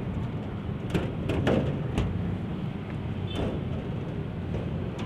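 Diesel locomotive engine running with a steady low drone at slow speed. Several short sharp clicks and knocks come between about one and three and a half seconds in.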